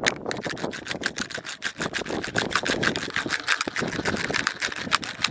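Rapid fingertip tapping on a plastic kolukattai (modak) mold: a fast, uneven patter of sharp clicks, many a second.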